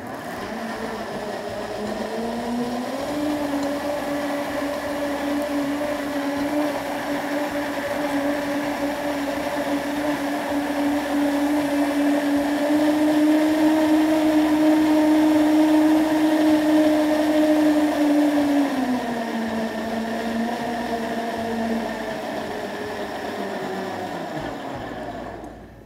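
Countertop blender motor running, blending granadilla with rice milk into a liquid cream. The motor's hum rises in pitch about two seconds in, holds steady, drops back down near the end and then cuts off.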